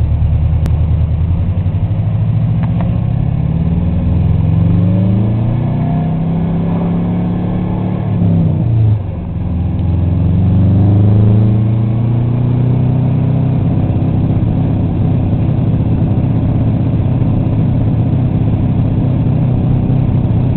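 Subaru EJ22T turbocharged flat-four revving up over several seconds; its pitch drops sharply about nine seconds in, then climbs again and holds high. The running is rough and choppy at high revs: a misfire above about 4,000 rpm that sounds like an anti-lag system.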